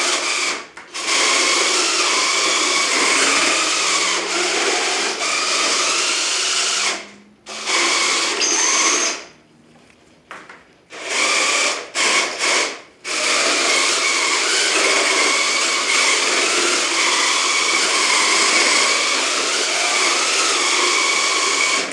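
Small combat robot's electric drive motors whirring as it is driven back and forth in different directions. The motors stop and restart several times: briefly about 7 s in, for about a second around 9–10 s, and in a few quick cuts near 11–13 s. Then they run steadily until they stop at the very end.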